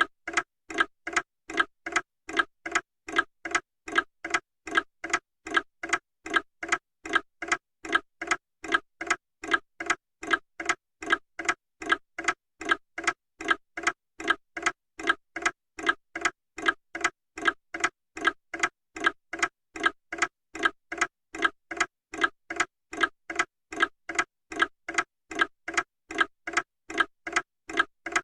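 Mechanical clock ticking steadily, about two ticks a second.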